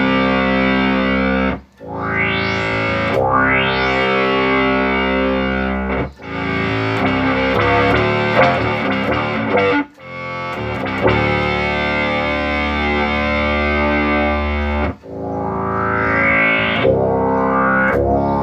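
Electro-Harmonix Bass MicroSynth pedal producing sustained synth notes with a string instrument as the input, with upward filter sweeps in the first few seconds and again near the end. The pedal has been repaired after 18 V overvoltage damage and is working.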